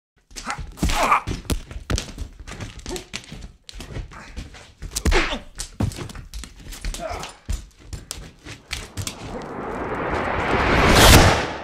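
A rapid, irregular series of thumps and knocks, then a rush of noise that swells for a few seconds and cuts off suddenly near the end.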